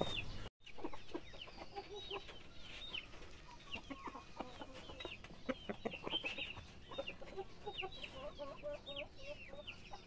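Chickens clucking softly, mixed with many short, high, falling chirps, several a second. A brief dropout to silence about half a second in.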